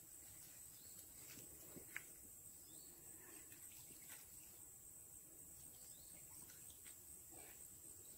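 Near silence: faint outdoor background with a steady high-pitched hum and a few soft clicks, one a little sharper about two seconds in.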